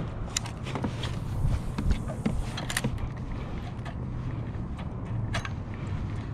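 Small waves lapping and slapping irregularly against a kayak's plastic hull, over a steady low rumble.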